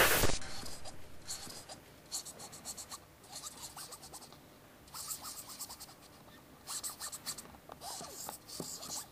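A pen scratching over the surface of a football in several short strokes, with quiet pauses between them.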